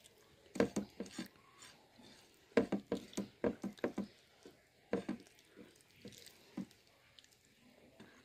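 Fingers scooping and pressing leftover curry-soaked rice against a plate, in short clusters of quick taps and scrapes.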